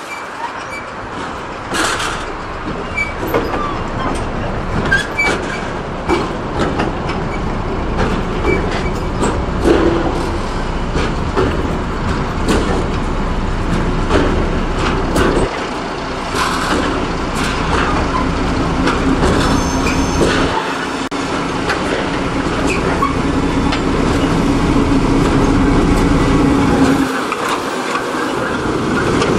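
British Rail Class 03 diesel shunter D2112 running with a train of wagons: a continuous engine rumble with frequent clanks and knocks from the wagons on the track. A steady engine drone stands out for about ten seconds in the second half, then drops away near the end.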